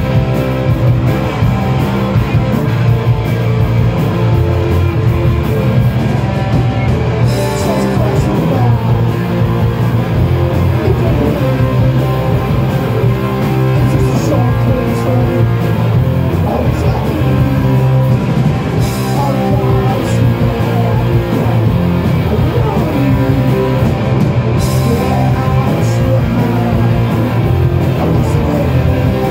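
Live rock band playing loud and without a break: distorted electric guitar and drum kit.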